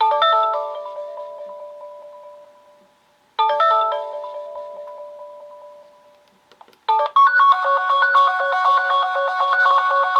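Sonim XP6 stock ringtones: a short run of quick chime-like notes that rings out and fades, played twice, then a different ringtone begins about seven seconds in with a busier, repeating melody.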